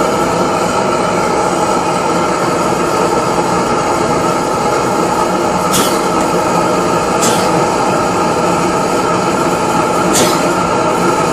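Gas blowtorch flame burning with a steady rushing noise as it preheats the hot bulb of a Lanz Bulldog's single-cylinder hot-bulb engine before starting. Three short sharp sounds cut through it, two a little past the middle and one near the end.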